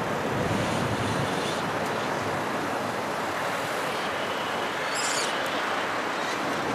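Steady outdoor noise of wind and road traffic, with a brief high-pitched sound about five seconds in.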